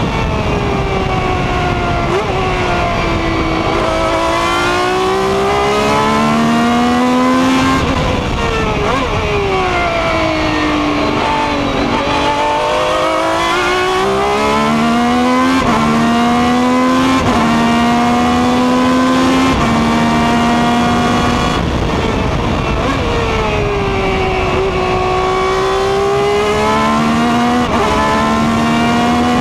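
Ferrari 333 SP's 4.0-litre V12 racing flat out, heard from inside the open cockpit: the revs climb through the gears with quick upshifts, then fall away under braking into corners, several times over.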